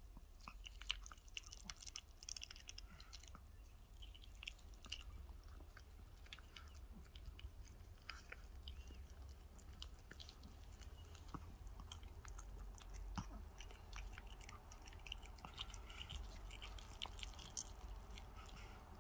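Small dog chewing and crunching raw chicken on the bone: faint, wet gnawing with many quick, sharp crunches and clicks throughout.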